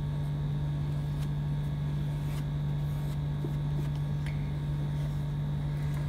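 A steady low hum at one pitch, with a few faint scratches of oil pastel on paper.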